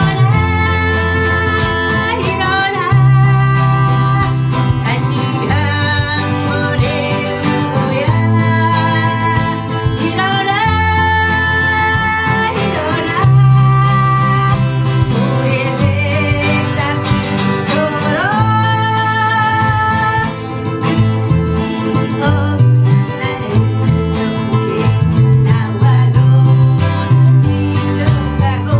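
A woman singing a Korean song while strumming chords on a steel-string acoustic guitar, her voice holding long notes over the steady strumming.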